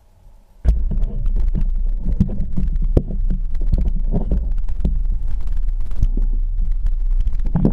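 Handling noise on the GoPro's housing as the quadcopter is picked up and turned over: a sudden loud low rumble that starts about half a second in, with many irregular knocks and scrapes.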